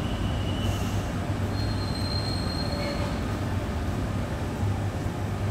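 TRA EMU950 electric multiple unit rolling slowly alongside the platform as it comes in to stop, with a steady low hum. A brief thin high squeal comes about one and a half to three seconds in.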